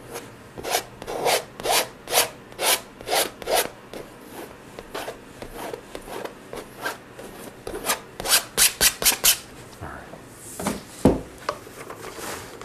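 Palette knife scraping and spreading oil paint across a stretched canvas in short strokes, about two a second at first, then a quicker run of strokes after about eight seconds. A single thump comes near the end.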